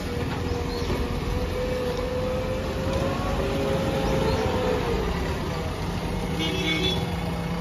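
JCB 3DX backhoe loader's diesel engine running as the machine moves off. A whine rises slightly and falls back in the middle, and there is a brief higher sound near the end.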